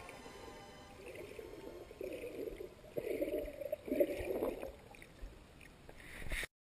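Muffled water sloshing and gurgling recorded underwater, coming in irregular surges, then cutting off suddenly near the end.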